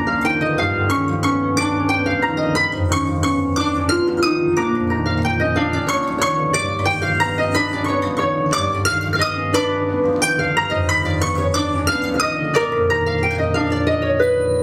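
Two concert harps played together in a duet: a fast, steady stream of plucked notes over low held bass notes.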